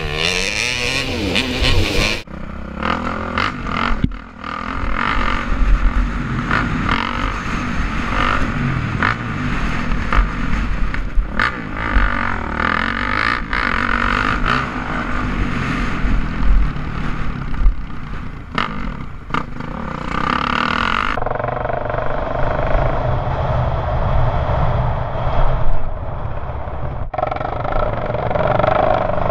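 Motocross dirt bike engine revving up and falling back again and again as it is ridden around a dirt track, with wind rush and knocks on a bike- or helmet-mounted camera. The sound changes suddenly at cuts between clips, about two seconds in and again around twenty-one seconds in.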